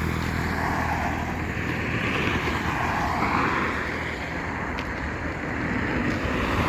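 Steady rushing noise of road traffic going by, swelling and fading slowly.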